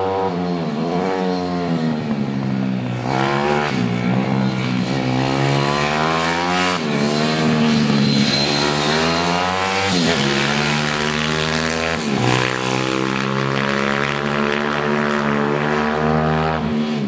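Minimotard pit bike's small single-cylinder engine revving hard around a track, its pitch climbing and then dropping sharply about five times.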